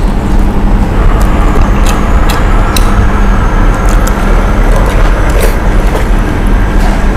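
Loud, steady rumbling background noise with a faint low hum running through it, and a few sharp clicks scattered through it.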